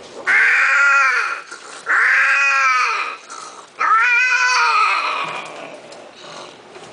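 Himalayan cat giving three long, loud yowls, each rising and then falling in pitch, with short pauses between them.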